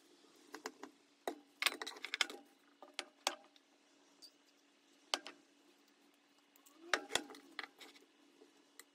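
Metal forks clinking and scraping against a ceramic plate and a glass food container as pasta is portioned out: scattered sharp clicks, bunched about a second and a half in and again around seven seconds in, over a faint steady hum.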